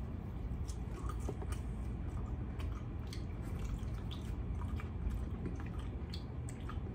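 Close-up wet chewing and lip-smacking of air-fried rotisserie chicken: a scatter of short, irregular clicks and squishes over a low steady hum.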